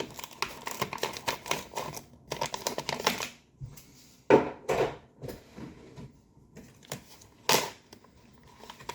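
A coffee bag rustling and crinkling as it is opened, with rapid crackling for the first few seconds. A few louder sharp snaps of the packaging follow, around the middle and near the end.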